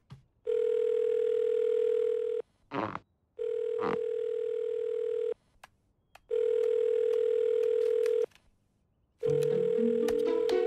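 Telephone ringback tone heard through a handset: a steady single-pitched beep about two seconds long, repeated four times with roughly one-second gaps, the sign that the called phone is ringing unanswered.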